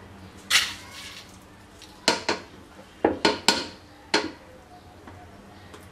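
Metal mesh strainer and cooking pot clattering as damp broken rice is tipped and knocked out into the pot: a short scraping clatter about half a second in, then about six sharp knocks.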